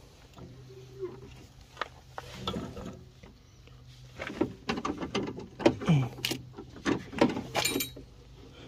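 Scattered clicks, knocks and rattles from a window regulator assembly being handled and fitted inside a car door, busier in the second half.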